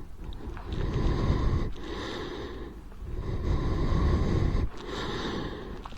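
Muffled blowing noise on a helmet-mounted microphone, coming in uneven surges a second or two long with short breaks between them.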